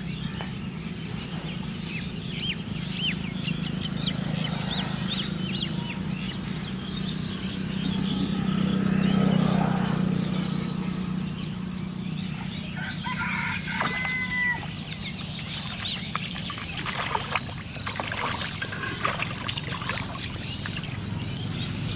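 A rooster crowing once about thirteen seconds in, over a steady low hum, with small birds chirping a few seconds in. Short splashes near the end as a hooked fish thrashes at the water's surface.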